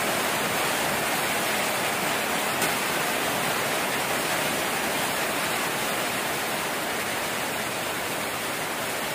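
A steady rushing hiss, even and unbroken, with a single faint click about two and a half seconds in.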